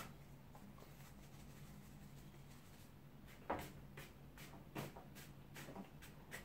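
Wide flat watercolour brush sweeping back and forth across wet watercolour paper. The short swishing strokes start about halfway through and come about two or three a second, the first the loudest.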